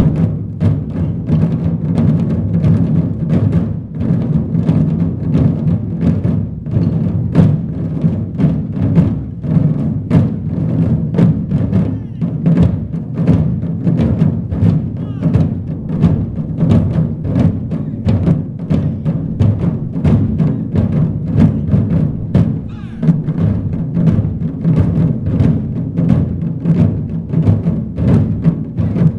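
Japanese taiko ensemble playing: many large barrel drums (nagado-daiko) beaten with wooden bachi sticks in a fast, dense, continuous rhythm of deep strokes.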